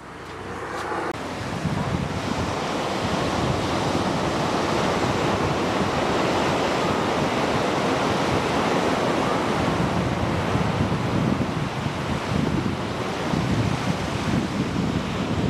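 Ocean surf breaking and washing up a sandy beach, a steady rushing wash, with wind gusting on the microphone as low buffeting.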